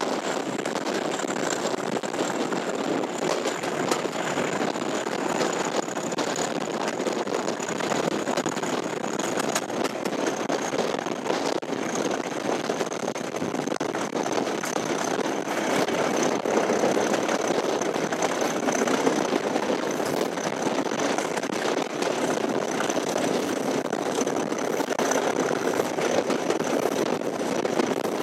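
English Electric Class 37 diesel locomotive D6700 working under power, heard from the coach just behind it: a steady engine note with a thin high whistle, typical of a Class 37's turbocharger, that slowly drops in pitch. The engine grows a little louder about halfway through.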